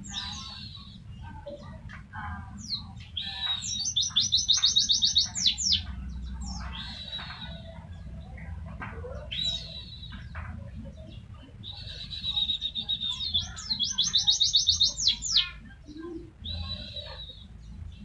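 White-eye (pleci) singing: high chirping phrases around a held whistle, twice breaking into a fast rapid-fire trill of about ten notes a second, the 'tembakan' song that keepers use as a training recording.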